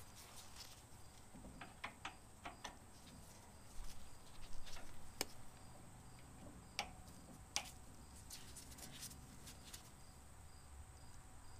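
Faint, scattered clicks and light metal ticks of pliers working at a rusted emergency brake cable connector under a truck, with a few sharper ticks around the middle.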